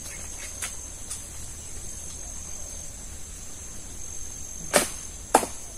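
Steady, high insect chirring from the surrounding trees, with two sharp knocks close together near the end.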